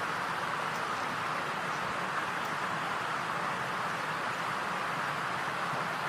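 A steady, even hiss with nothing standing out from it.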